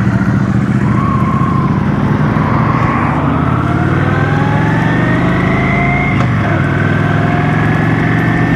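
Cruiser motorcycle engine running on the road, its pitch climbing steadily as it accelerates. About six seconds in the pitch drops briefly, as at a gear change, then climbs again.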